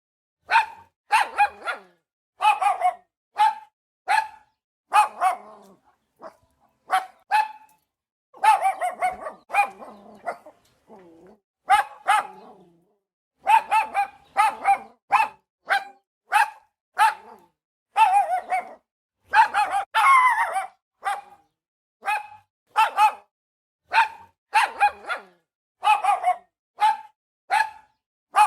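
A dog barking repeatedly, short loud barks coming one or two a second, with brief pauses between runs.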